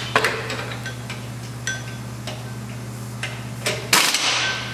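Scattered metal clicks and knocks as the transplanter's gearbox assembly is lowered and fitted onto its frame, with a louder ringing metal clank about four seconds in. A steady low hum runs underneath.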